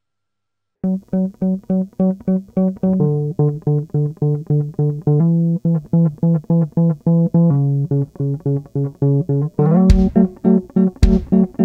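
Violin-shaped electric bass guitar playing a quick line of plucked notes at about four a second, starting after a brief silence. Sharp percussive hits join in near the end.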